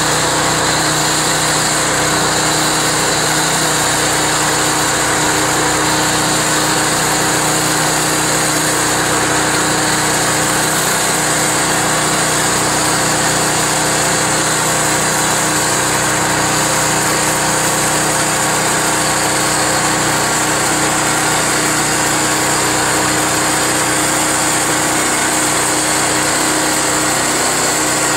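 Gas engine of a Harbor Freight bandsaw mill running steadily at speed, driving a 1½-inch Wood-Mizer band blade, with a constant hum and a high hiss and no change in pitch or level.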